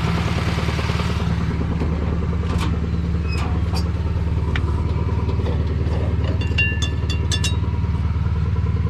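Engine running steadily at idle. For about the first second there is a hiss of air, likely compressed air blowing out the air filter, and a few light metallic clicks and clatter follow later.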